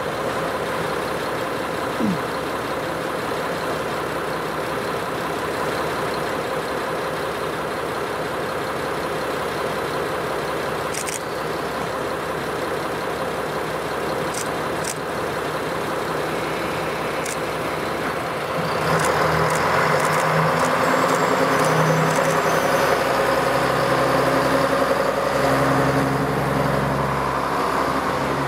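JR Kyushu KiHa 47 diesel railcar's engine idling steadily at the platform, then about two-thirds of the way in it revs up and the sound grows louder as the railcar pulls away.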